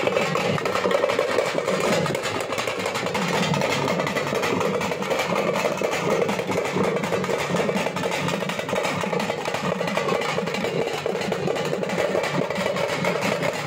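Parai frame drums of a thappattam troupe beaten with sticks in a fast, unbroken rhythm.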